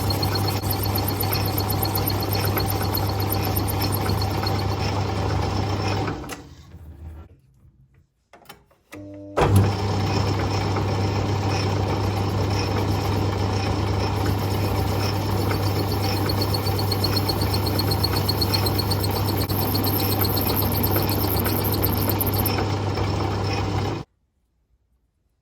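Lathe motor running with a steady hum. It spins down about six seconds in, switches back on a few seconds later with a sharp start, then runs on until it cuts off abruptly near the end.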